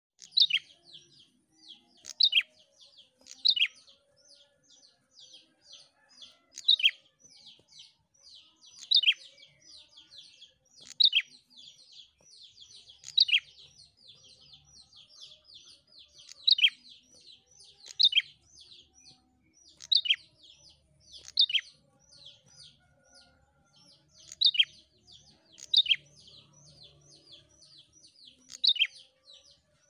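Prenjak calling persistently: a fast series of short, high, downward-slurred chips, about two or three a second, with a louder accented note every two seconds or so.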